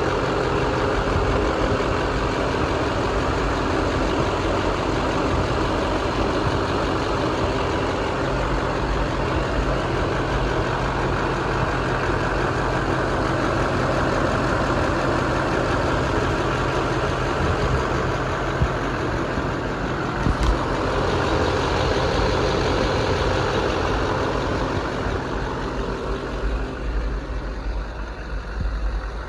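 Chevrolet Silverado 3500's 6.6L Duramax V8 diesel engine idling steadily, with a short click about two-thirds of the way through. The engine grows a little quieter in the last few seconds.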